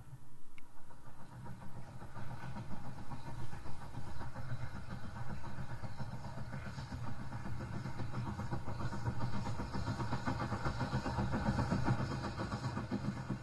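Steam locomotive running with its train, heard from a distance: a steady low rumble with a dense, rapid beat of exhaust and running noise, a little stronger near the end.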